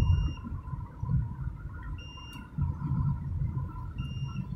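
Low road and engine rumble inside a moving car on a wet road, with a short high electronic beep repeating every two seconds, three times in all.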